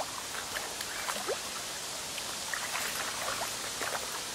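River water lapping at the bank: a soft, steady wash with faint scattered little splashes and ticks.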